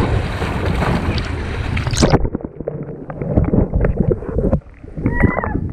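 Pool water splashing loudly as a swimmer dunks a ball on a poolside hoop. About two seconds in, the sound turns suddenly muffled as the microphone goes underwater, leaving a dull churning of water with soft knocks.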